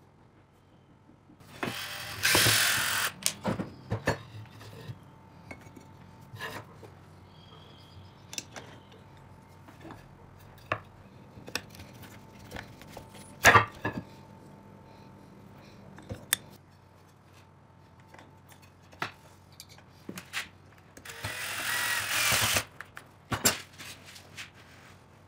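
Electric drill spinning a homemade square-tube cutter, shaving a wooden stick in two short loud bursts, one about two seconds in and one near the end. In between, wooden sticks knock and clatter on the bench, with one sharp knock about halfway.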